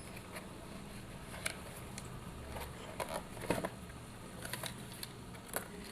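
Scattered light clicks and taps of plastic packaging being handled as a toy RC car's remote controller is unpacked, the sharpest about halfway through, over a low steady hum.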